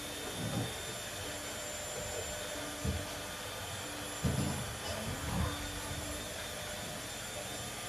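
Steady mechanical hum, like a household fan or air handler, under a few short dull thumps of paws and feet scrambling on a hardwood floor as two Samoyed puppies tug at a flirt pole.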